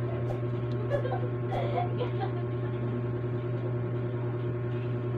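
A steady low hum, with a few light clicks and taps in the first two seconds.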